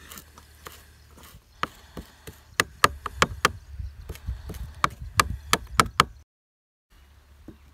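Kitchen knife chopping fresh dill on a plastic cutting board: a run of sharp, irregular taps, light at first, then loud and frequent from about a second and a half in, stopping just after six seconds.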